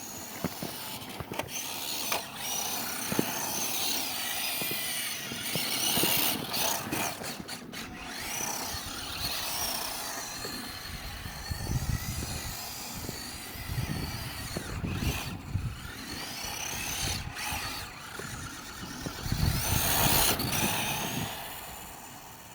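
Electric motor of a WPL D12 RC drift truck whining as it drives, the pitch rising and falling again and again with the throttle.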